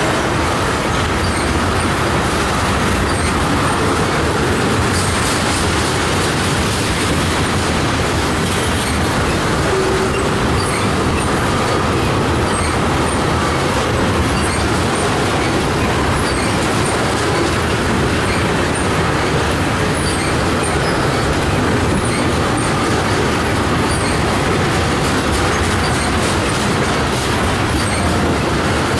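Freight train of ethanol tank cars rolling steadily past close by: the continuous rumble and rattle of wheels on rail.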